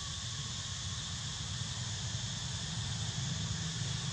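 Steady outdoor forest ambience: a constant high hiss over a low, steady rumble, with no distinct calls or knocks.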